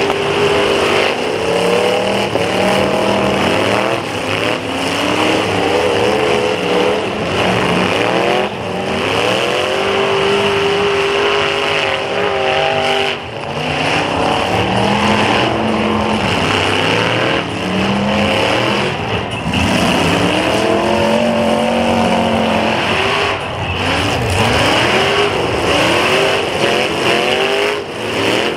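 Several demolition derby cars' engines revving hard, their pitch rising and falling again and again as the cars accelerate and ram one another, with now and then the short crack of a crash.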